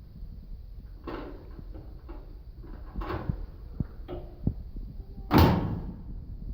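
Sheet-metal dryer cabinet panels being handled and fitted back on during reassembly: a few scraping clunks, then one loud bang about five seconds in.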